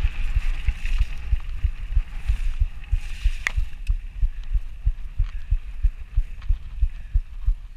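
A downhill mountain bike ridden fast over rough grass, heard through an action camera's microphone: a stream of rapid, uneven low thumps from wind buffeting and jolts of the bike, with a faint hiss and a single sharp click about three and a half seconds in.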